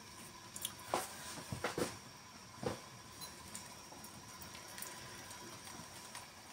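Thin soy and oyster sauce mixture heating in a nonstick frying pan, just starting to bubble: a faint low hiss with a few soft clicks and pops in the first three seconds.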